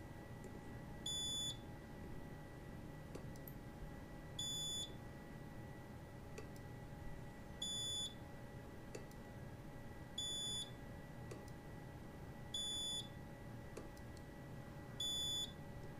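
Strain-gauge spot welder beeping: six short high-pitched beeps about every two and a half to three seconds, with a few faint clicks in between, over a steady low hum.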